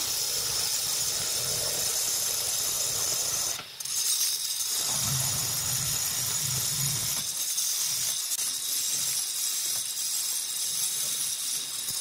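Handheld electric stone cutter with a diamond blade wet-cutting along the edge of a granite slab: a steady, high-pitched grinding hiss, with a brief break about four seconds in.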